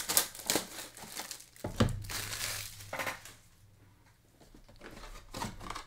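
Packaging of a trading-card box being handled: plastic wrap crinkling and cardboard rustling in irregular bursts, with a quieter pause a little after the middle.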